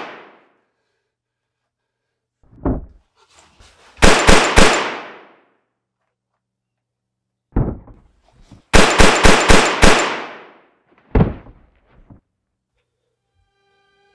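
Handgun fired in quick volleys: about four shots a few seconds in and about five more near the middle, each with a ringing tail, with single duller knocks between them.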